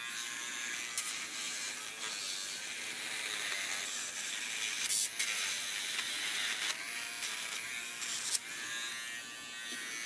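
Small battery-powered pet nail grinder whirring steadily as it files a Maltese's claws, with a few short clicks along the way.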